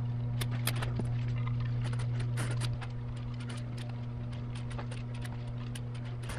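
Light clicks and taps of steel-backed main bearing shells being handled and pressed into the saddles of an aluminium EJ25 engine block, over a steady low electrical hum that drops slightly about three seconds in.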